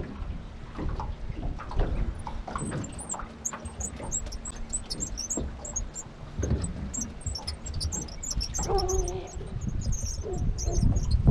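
Small birds chirping in quick, high twitters over wind rumble on the microphone, with scattered clicks. A short, lower call comes about nine seconds in.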